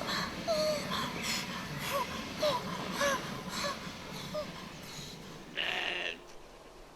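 A string of short gasping vocal sounds, about two a second, growing fainter, then one longer breathy burst near the end.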